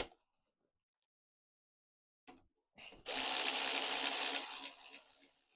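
Power tool running in the steering rack's mounting bolts: a click right at the start, then a loud hissing whir for about two seconds that tails off near the end.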